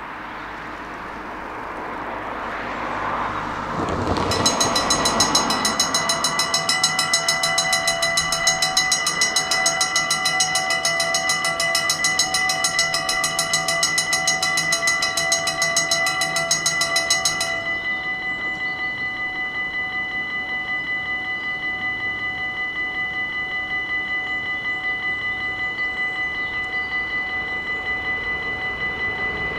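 Electronic warning bells of a Dutch automatic level crossing start ringing about four seconds in, a rapid, high metallic ring that warns of an approaching train while the half-barriers lower. A little past halfway the ringing turns quieter and loses its highest ring, as the bells are turned down once the barriers are closed, and keeps going steadily. Road traffic is heard before the bells start.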